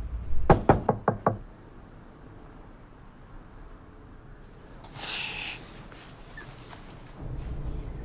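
Five quick knocks, a knuckle rapping on a door, followed about five seconds in by a short, softer hiss-like noise.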